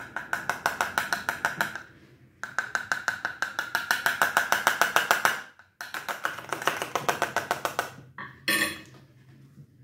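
A metal spoon tapping rapidly on a plastic funnel, about ten light clinks a second, in three runs with short pauses and one louder clink near the end. The tapping shakes cornstarch down through the funnel into a bicycle inner tube.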